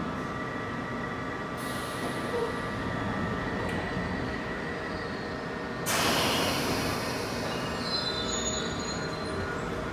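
London Underground 1973 Stock tube train standing at the platform, with a steady hum of its equipment while its doors close in the first few seconds. About six seconds in comes a sudden loud rush of hissing air, and the train starts to pull away.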